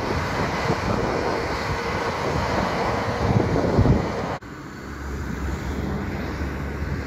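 Northern CAF Civity multiple unit passing close by, a steady rush of wheels on rail and running gear. About four seconds in it cuts off abruptly, and a quieter low rumble with wind on the microphone follows.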